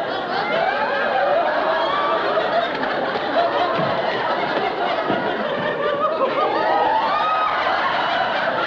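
Audience laughing steadily throughout, many voices overlapping in one continuous wave of laughter.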